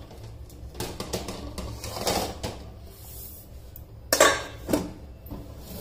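A plate being set over a stainless steel bowl as a lid, clattering and clinking against the metal rim. A few light knocks come first, then the loudest clatter a little past four seconds in, with a smaller knock just after.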